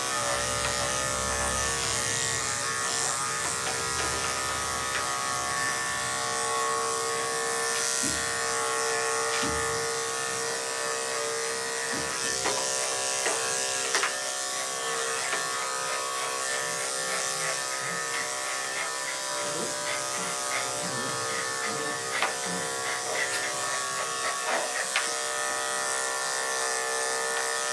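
Electric dog-grooming clippers running with a steady buzzing hum while trimming the dog's coat.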